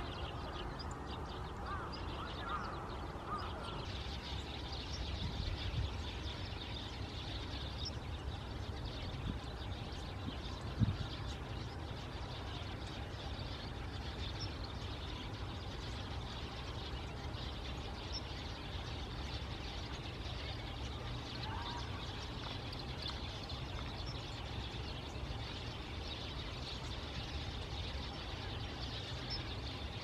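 A flock of Eurasian tree sparrows chattering, with many short overlapping chirps throughout, over a low steady rumble. A single brief thump about eleven seconds in.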